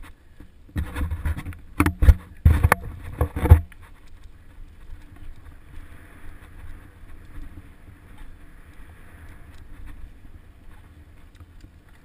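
Mountain bike rolling down a dirt singletrack. About a second in the bike rattles and knocks hard several times over rough ground for a few seconds, then settles into a steady low rumble of the tyres on the dirt.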